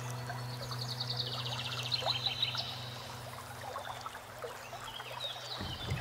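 Background soundtrack of nature ambience over soft music: scattered bird chirps, a rapid trill about half a second in, and running water, over a held low tone that shifts to a new low note near the end.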